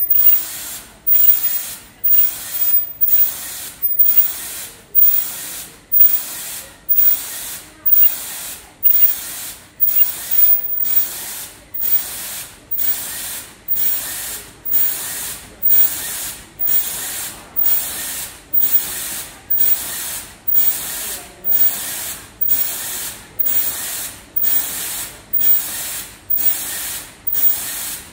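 KN95 mask-making machine running in steady production, its cycle repeating a little faster than once a second: each cycle a sharp mechanical clack followed by a short hiss.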